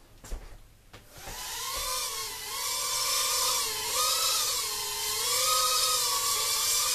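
Cheerson CX-10 micro quadcopter's four tiny coreless motors and propellers spinning up about a second in, after a few light clicks, then a steady high buzzing whine whose pitch wavers up and down as it lifts off and hovers.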